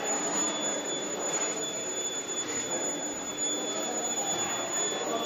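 100 kW IGBT induction melting furnace installation running: a steady high-pitched whine over a constant machinery din.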